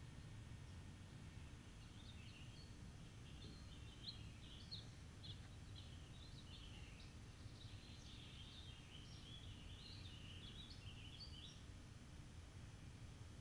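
Faint songbird singing a long run of quick chirping, warbling notes over a low steady background rumble; the song starts about a second in and stops near the end.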